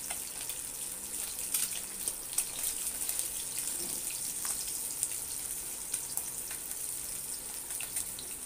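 Hot oil sizzling steadily under pieces of fried katla fish in a nonstick pan, with scattered sharp crackles and clicks as a spatula lifts the pieces out.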